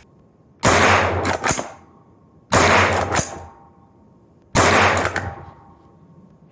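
Three shots from a Schmeisser SP9 9mm straight-pull rifle, about two seconds apart, each followed within half a second by a few sharp clacks as the straight-pull action is cycled.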